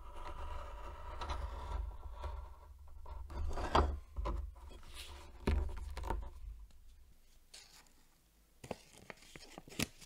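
Foil-faced car sound-deadening mat being handled, marked with a pen and pressed into a 3D-printed plastic case: irregular crinkling and scraping with scattered clicks, louder around the middle and a few sharp clicks near the end.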